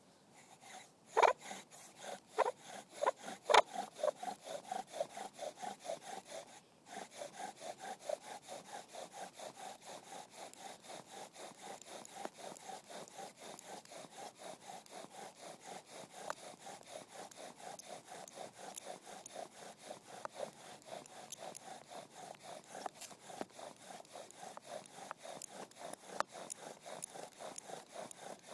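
Bow drill at work: the wooden spindle is spun back and forth by the bow and rubs and squeaks in the hearth board in fast, even strokes. It starts about a second in, with a few louder strokes at first and a short break about seven seconds in.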